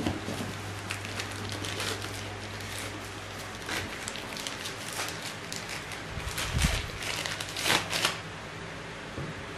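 Thin plastic bags crinkling and rustling in irregular bursts as small steel lathe chuck jaws are unwrapped from them by hand, the loudest crinkles about six and a half and eight seconds in, with a dull knock near the first of them. A low steady hum lies underneath.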